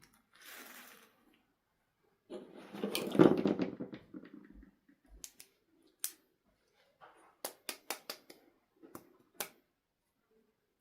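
Handling noise from toys and packaging: a loud rustling, scraping stretch about two to four seconds in, then a series of sharp plastic clicks and taps.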